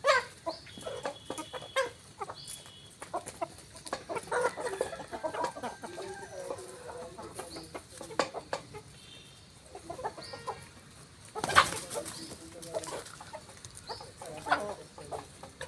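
A flock of desi chickens clucking, with many short sharp taps and one louder sudden burst about eleven and a half seconds in.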